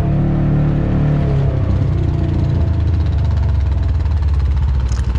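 ATV engine running at a steady speed, then easing off about a second and a half in to a lower, rougher putter close to idle as the machine slows on the trail.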